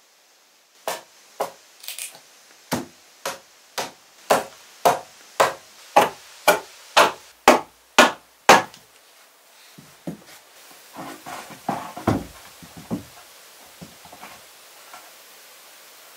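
A hammer striking wood in a steady run of about fifteen blows, roughly two a second, getting louder as it goes. It is followed by a few seconds of irregular scraping and rustling and one dull thump.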